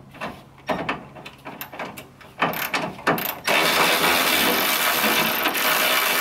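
Cordless electric ratchet backing out a 10 mm bolt on a radiator hold-down bracket: a run of separate clicks, then about three and a half seconds in the motor runs steadily.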